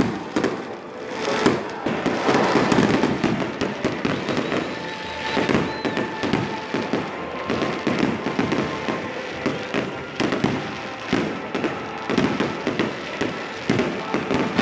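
Aerial fireworks bursting overhead: a rapid, irregular series of bangs and crackles.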